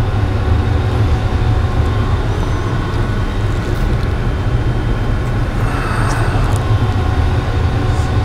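Steady low hum and rumble with faint steady tones above it, a continuous machine-like drone; a brief faint hiss about six seconds in.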